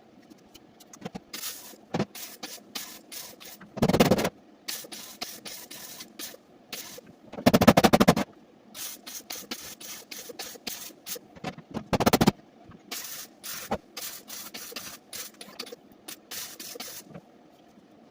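Welder laying short bursts of crackling welds, many in quick succession, with three longer, louder bursts, while plug-welding and seam-welding a replacement steel floor pan into a car body.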